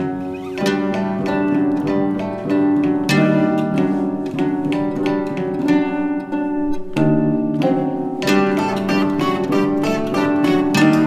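Music on a plucked string instrument: a melody of quickly picked notes that ring on.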